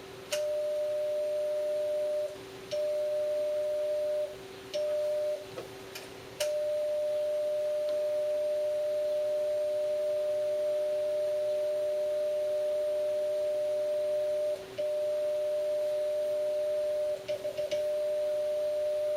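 A transceiver's CW sidetone: a steady beep held while the key is down to tune a linear amplifier to full output. It breaks off briefly several times in the first six seconds and once more in the middle as the key is let up, then stutters near the end. A few sharp clicks come early on, and a lower steady tone hums underneath throughout.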